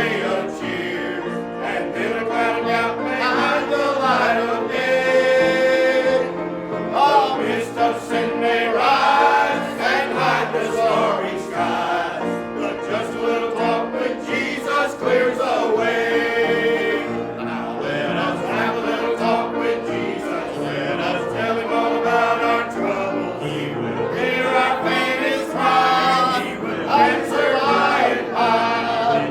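Church congregation singing a hymn together: many voices in unison and harmony, with long held notes.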